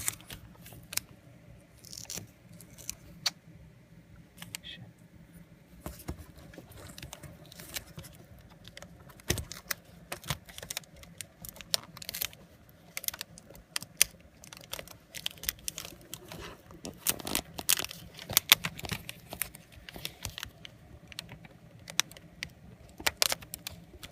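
Scattered small clicks, taps and rustles of hands handling a replacement laptop LCD panel while fitting its display cable connector, busiest about three quarters of the way through.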